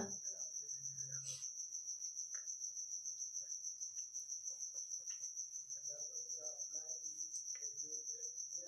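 Steady high-pitched insect trill, pulsing rapidly without a break.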